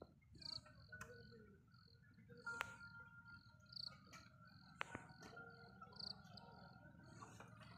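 Near silence: faint, high insect chirping repeated a few times a second over a low background rumble, with a few soft clicks.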